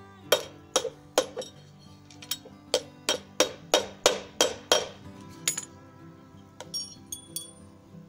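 Sharp metallic clinks, about a dozen in quick succession at roughly three a second with a short ring after each, thinning out after about five seconds: metal being tapped while the bolts of a Citroën 2CV engine's replacement plastic cooling fan are fitted, so they bite into the plastic hub. Background music plays underneath.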